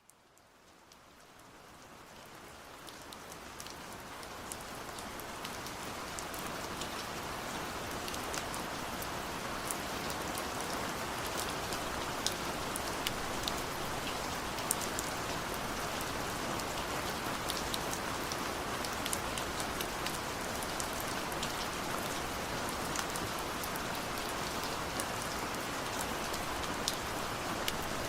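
Steady rain falling, with individual drops ticking sharply on a surface over the even hiss. It fades in over the first few seconds, then holds steady.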